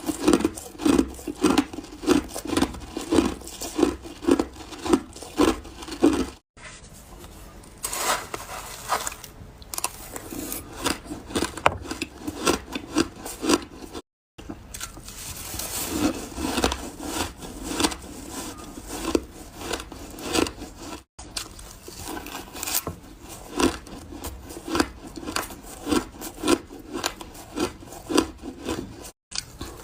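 Ice being chewed close to the microphone: rhythmic crunching at about two bites a second, broken by a few abrupt dropouts to silence.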